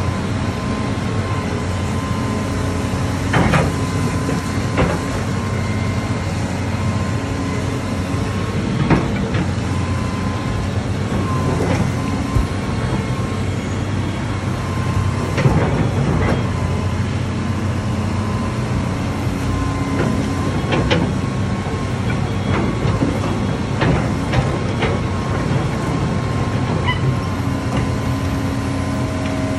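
Hitachi excavator's diesel engine and hydraulics running steadily, with a held whine, while it tears down a house. Walls and debris crack and crash apart every few seconds.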